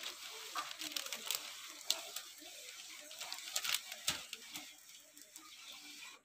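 Soft rustling and handling noise with a few light clicks and knocks over a steady hiss.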